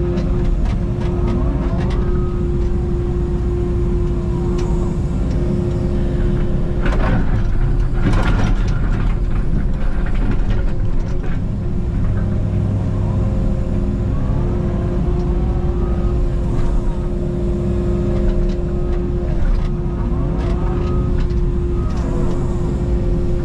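Takeuchi TB290 mini excavator digging: the diesel engine runs steadily under load while the hydraulics whine, rising and falling in pitch as the boom and bucket move. A few sharp clanks come about seven to eight seconds in, typical of the bucket striking rock or dumping.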